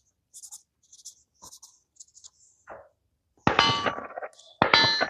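A few faint clinks, then two metallic clangs about a second apart, each ringing on briefly after the hit.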